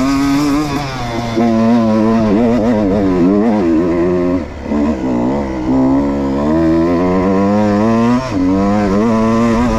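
Two-stroke engine of a 125 Beta RR Racing enduro bike revving hard under load, its pitch rising and falling with the throttle. The revs drop briefly about halfway through and again near the end.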